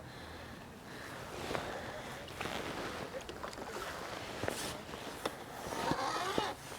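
Water splashing and sloshing, with scattered small clicks and knocks.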